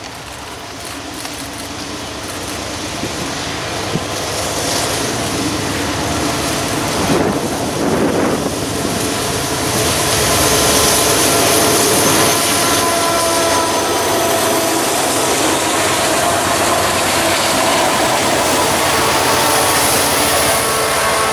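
Freight train passing close by: diesel locomotives running, growing steadily louder as they approach and go past about seven to ten seconds in, then the steady rumble and clatter of freight cars rolling on the rails, with thin ringing tones above the noise.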